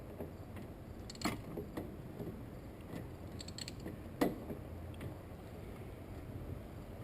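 Hand tools working in an engine bay: a few scattered metallic clicks and clinks, with one sharper knock about four seconds in.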